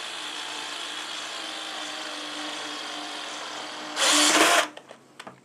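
Cordless drill/driver running steadily under load as it drives a long, thick-shank screw into a pre-drilled wooden board. Near the end it gets much louder for about half a second, then stops suddenly, followed by a few light clicks.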